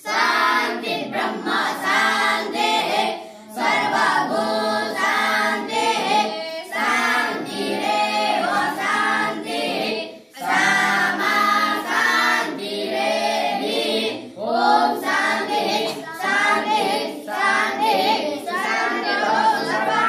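A group of young voices chanting together in unison, in long phrases with brief pauses between them.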